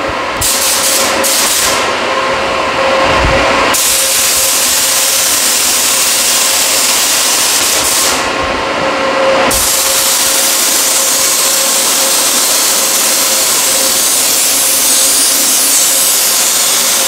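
Compressed-air paint spray gun hissing as it sprays, in a few short bursts at first, then long continuous passes from about four seconds in, with a pause of a second or so past the middle. A steady hum sits underneath.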